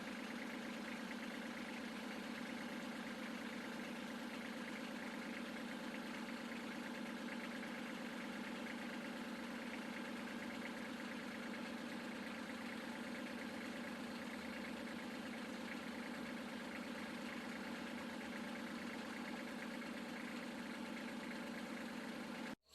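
An engine idling steadily, heard faintly as an even hum that does not change, cutting off abruptly at the end.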